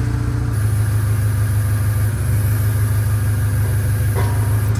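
An engine running steadily at idle, a low hum with a faint high whine over it from about half a second in until near the end.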